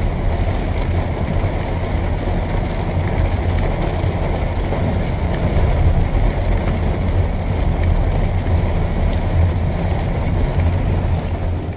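Steady low rumble and hiss of road traffic, an even drone with no distinct events.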